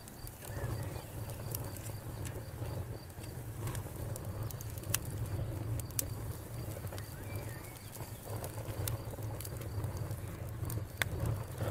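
Wood campfire crackling, with sharp pops every second or so over a low steady rumble.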